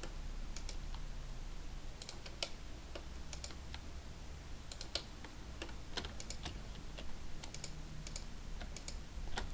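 Irregular clicks of a computer keyboard and mouse, some in quick pairs, over a low steady hum.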